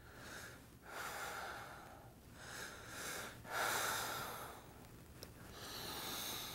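A person breathing hard: about five long breaths in a row, each about a second long.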